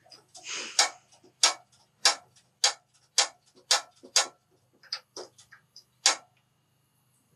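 Push-button igniter of a small propane heater clicking over and over, about one sharp click every half second, as someone tries to relight a heater that has gone out; the clicks stop about six seconds in.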